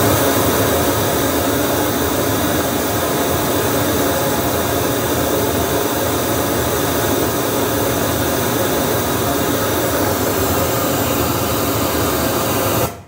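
Pink-noise test signal played through a subwoofer and full-range PA speakers together, a steady full-range hiss with strong low end, used to check phase alignment between sub and tops. It cuts off suddenly near the end.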